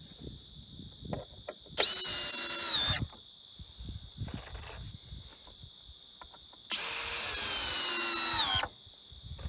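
Cordless drill driving screws into pressure-treated wood stair treads in two runs: a short one about two seconds in and a longer one of about two seconds near the end. The motor's pitch drops at the end of each run.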